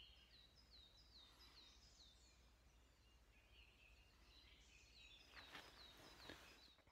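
Small songbirds singing faintly in a spruce forest, a quick run of short, high chirps that slide downward in pitch: spring birdsong. A few soft knocks near the end.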